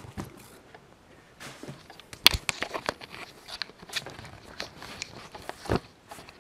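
Handling noise around a taped cardboard parcel on a wooden desk: scattered taps, knocks and light rustling, with a sharp knock a little over two seconds in and a duller thud near the end.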